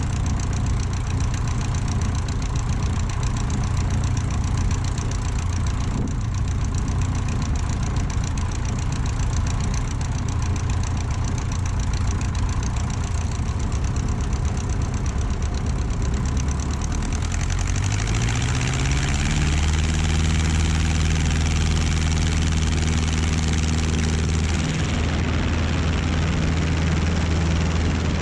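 Light aircraft's piston engine running steadily. Its pitch rises over a couple of seconds about two-thirds of the way through as the revs increase, then holds at the higher speed.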